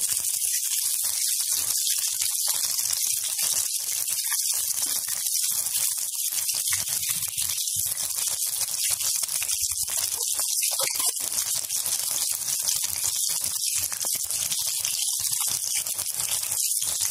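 Gram-flour-battered eggplant slices (baingan pakoras) deep-frying in hot oil in a kadhai, with a steady, crackling sizzle.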